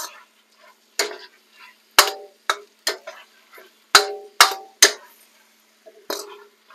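Metal wok ladle knocking and scraping against a steel wok as a stir fry is tossed, stirring in a cornstarch slurry to thicken the sauce: about eight sharp, ringing clanks at irregular intervals.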